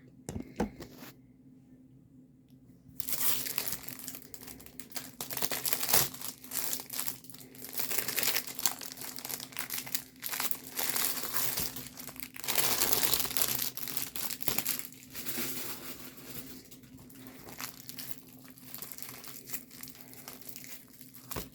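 Plastic packaging crinkling and tearing as a parcel is opened by hand, starting about three seconds in after a few light clicks and going on in irregular bursts.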